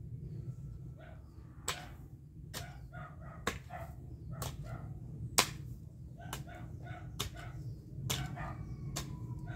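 Hoe blade striking garden soil about once a second, each stroke a sharp chop, the loudest about halfway through. Short repeated animal calls sound between the strokes over a steady low rumble.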